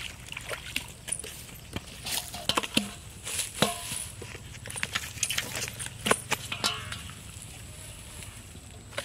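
A freshly caught fish flopping and thrashing on dry grass and leaves: irregular rustles and slaps, busiest in the middle and dying down near the end.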